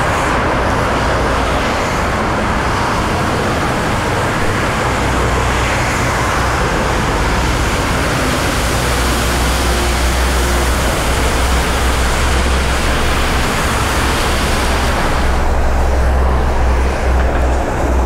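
Freeway traffic on rain-flooded lanes: cars and a semi truck passing at speed, their tyres hissing through standing water and throwing spray, over a steady low rumble. The high hiss eases about fifteen seconds in.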